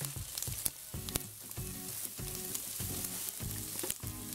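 Diced bacon and sliced calabresa sausage sizzling and crackling in hot oil in a pan, with grated carrot going into the pan near the end.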